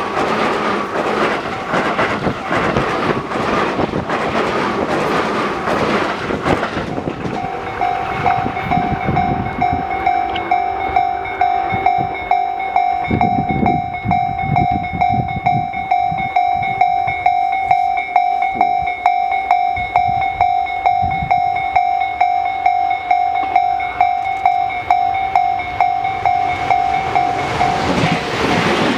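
A Tobu Tojo Line train runs past a level crossing with loud rolling rail noise. About seven seconds in, the crossing's electronic warning bell takes over, ringing one steady pitch at a quick, even beat for around twenty seconds. It stops near the end as broad train noise rises again.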